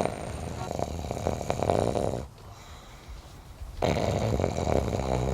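A man snoring: two long, rough snores of about two seconds each, with a pause of about a second and a half between them.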